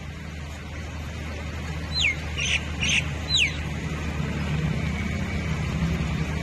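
Floodwater rushing across a street in a steady wash, with a low hum beneath it. About two seconds in, a bird calls four times in quick succession: two short falling whistles with two harsher notes between them.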